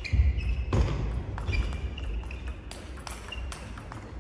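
Table tennis rally: the plastic ball clicking off the players' rackets and the table in quick alternation, a hit about every half-second.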